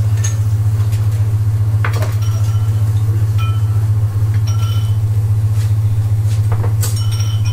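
A loud, steady low hum throughout, with scattered light clinks and taps of a knife and steel utensils as a fish is filleted on a plastic cutting board; a few of the clinks ring briefly.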